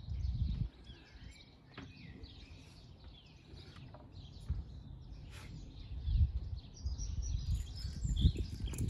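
Small birds chirping and singing throughout, with a few low rumbling thumps: one right at the start, one about six seconds in and one near the end.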